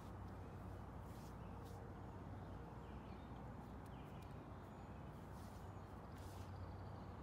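Quiet outdoor ambience: a steady low hum and rumble, with a few faint, short bird chirps now and then.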